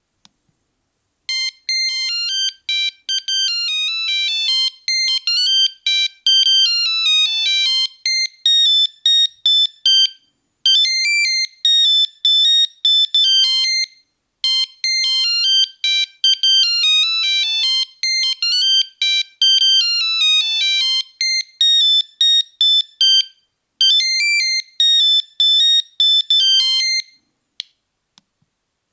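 Nokia 3310 monophonic ringtone: a fast melody of single beeping notes, one at a time. It starts about a second in, the phrase plays through twice with short breaks, and it stops shortly before the end.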